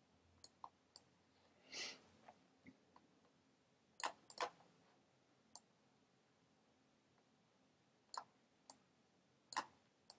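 Faint computer clicks, about a dozen scattered single and paired clicks as items are picked up and dragged on screen, with one short soft hiss a little under two seconds in.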